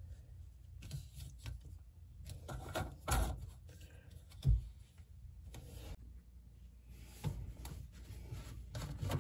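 Plastic sink-drain parts being handled and fitted: light rubbing and scraping of plastic pipe pieces, with a few soft knocks, the loudest about three seconds and four and a half seconds in.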